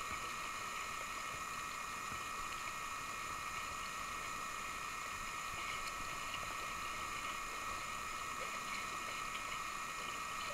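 Gentle sea water sloshing and lapping around a swimming diver and a kayak, under a steady high-pitched whine.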